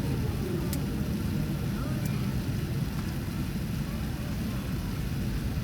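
Steady low rumble and hiss of an airliner cabin on the ground after landing, the engines and cabin air running, with faint voices and a light click or two.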